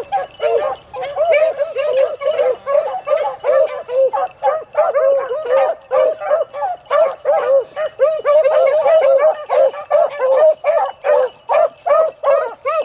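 A pack of beagles baying together, many short yelping calls overlapping several times a second without a break: the sound of hounds giving tongue while running a rabbit's scent.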